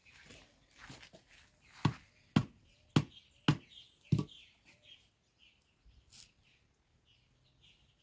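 Five sharp blows in quick succession from about two seconds in, roughly half a second apart, with small birds chirping throughout.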